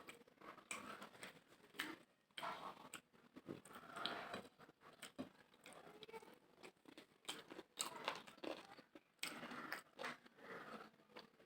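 Close-up chewing of mutton biryani: irregular wet mouth clicks, smacks and soft crunches, faint and uneven.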